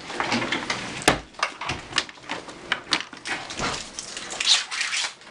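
A run of irregular clicks, knocks and rustles, with one sharper knock about a second in.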